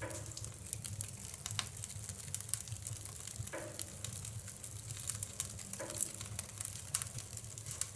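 Split firewood burning in the open firebox of a wood stove, crackling and hissing with frequent small pops over a low steady rumble.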